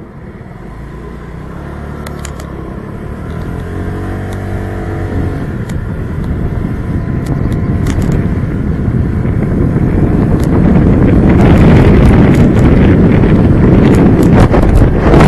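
Motorcycle engine running as the bike gets under way, its note rising and falling. The sound grows steadily louder, and from about ten seconds in, wind buffeting the microphone covers it as the bike gathers speed.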